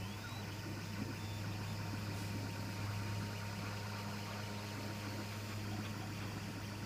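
3D printer running mid-print: a steady hum of fans and motors over an even whirring noise, with a short rising whine just at the start.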